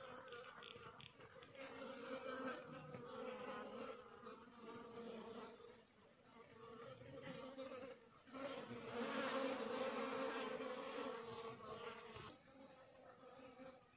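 Flying insects buzzing close by, a droning hum that swells and fades, loudest about eight to eleven seconds in. A thin, steady high-pitched insect drone runs underneath.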